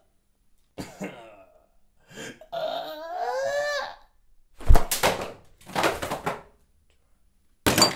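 A man's wordless, delighted vocal noises: a short giggle about a second in, then a drawn-out cooing sound that slides up and down in pitch. Around the middle come two short breathy, noisy bursts, the first starting with a thud, and another near the end.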